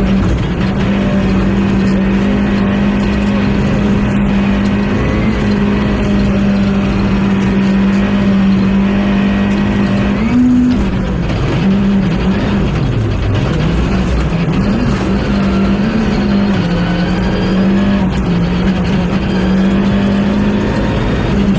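Rally car engine held at high, steady revs. About halfway through, the pitch drops sharply and then swings back up as the car slows through a corner and accelerates again.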